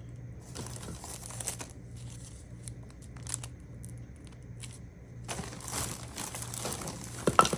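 Packaging being handled and rummaged through: irregular crinkling and rustling, with some tearing, getting busier and louder from about two-thirds of the way in, with a few sharp clicks near the end.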